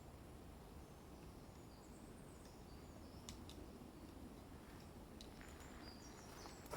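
Near silence: faint outdoor background with distant bird chirps and a couple of faint clicks.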